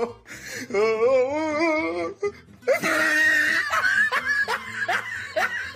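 A person laughing, with a wavering laugh early on and a louder, breathy burst of laughter from about halfway, over background music.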